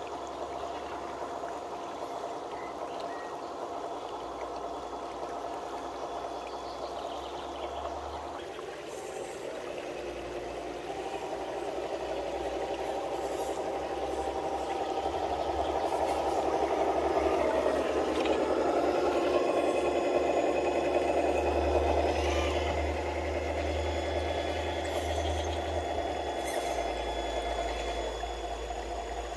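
Traxxas TRX-4 radio-controlled crawler trucks driving through a shallow creek: the motors and gear drivetrains whine steadily, growing louder through the middle as a truck comes close, over the splash and trickle of the stream.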